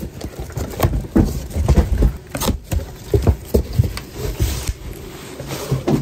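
Cardboard box being opened and handled: irregular scrapes, knocks and rustling of the cardboard flaps and the bubble-wrap packing inside.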